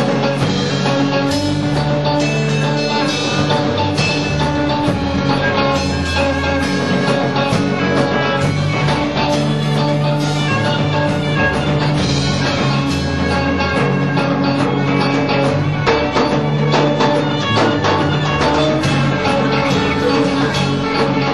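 Rock music: guitar over a moving bass line and drums, loud and steady.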